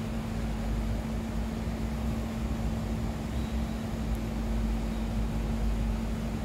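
Steady background noise of a subway platform with no train passing: a low rumble with a constant hum.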